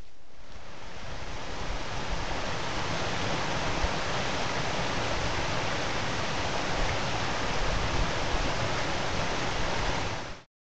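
Rocky mountain stream rushing over boulders and small cascades: a steady rush of water that swells over the first couple of seconds and cuts off suddenly near the end.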